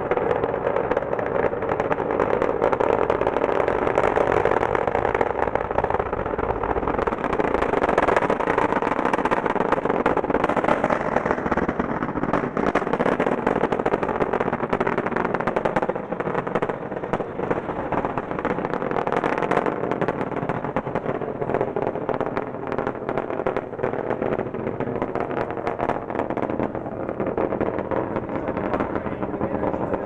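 Space Shuttle launch noise from the two solid rocket boosters and three main engines, heard from about three miles away: a loud, continuous rumble shot through with rapid crackling. It eases slightly about halfway through.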